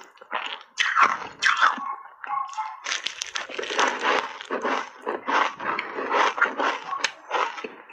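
Biting and chewing a block of refrozen ice coated in matcha powder, close to the mouth: a quick run of sharp crunches, several each second.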